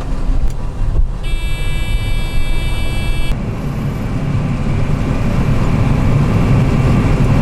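John Deere combine running, heard from inside the cab as it makes its first cut of wheat: a steady low rumble that grows louder over the last few seconds. A high, steady tone sounds for about two seconds about a second in and cuts off sharply.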